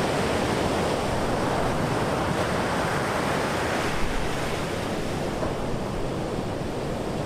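Heavy ocean surf breaking and washing up a sandy beach: a steady rush of waves.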